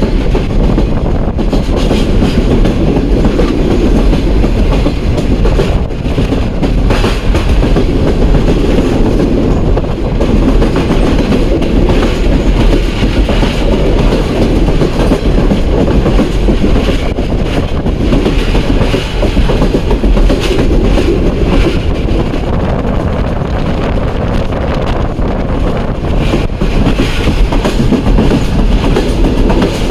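8 Down Tezgam Express passenger train running at speed, heard from on board: a loud, steady rumble of the coaches' wheels on the rails.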